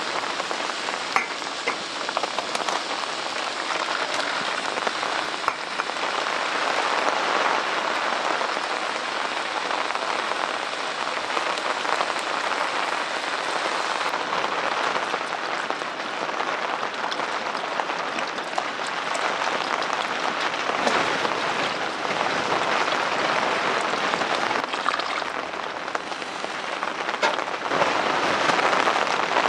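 Diced vegetables and meat sizzling in a bail-handled camp pot on a stove: a steady frying hiss full of small crackles.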